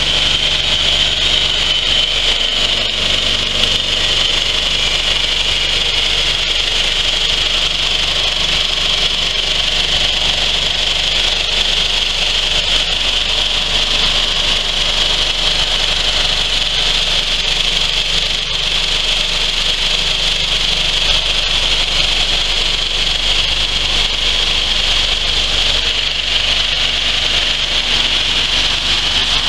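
Vibrating coffee bean sorting sieve running steadily: a low motor hum under a continuous high rattle of green coffee beans travelling over its stainless steel wire mesh screens.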